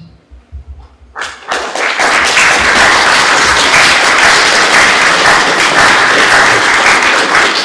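Audience applauding, breaking out about a second in and going on steadily as dense, loud clapping.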